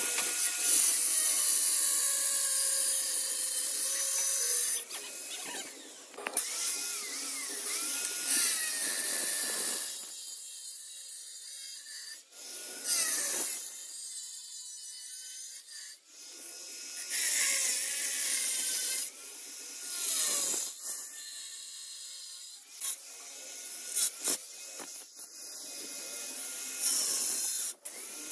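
Handheld angle grinder cutting ceramic floor tile in a series of passes. Its pitch dips and recovers as the disc bites into the tile, with short pauses between cuts.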